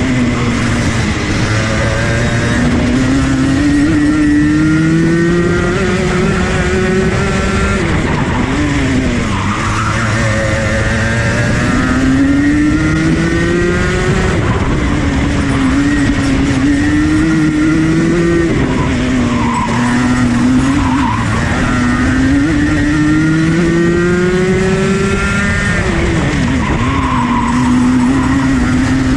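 Rotax Max 125cc two-stroke kart engine at race pace, heard on board. The pitch climbs steadily for several seconds as it accelerates along each straight, then drops sharply as the driver lifts for a corner, about five times.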